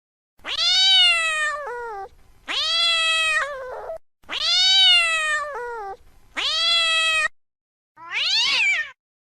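Domestic cat meowing: five long, drawn-out meows in a row, each rising and then falling in pitch, the last one shorter and shriller.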